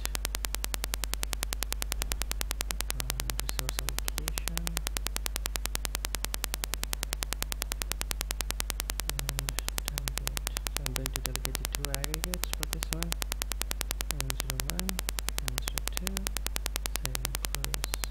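Electrical noise from a faulty microphone: a steady low hum with a rapid, evenly spaced clicking buzz over it.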